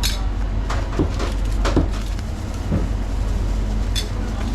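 Steady low rumble of a running vehicle, with a few scattered clicks and knocks.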